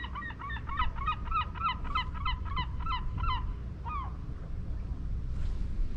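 Geese honking in a quick run of calls, about four a second, for over three seconds, with one last honk about four seconds in. A steady low rumble lies underneath.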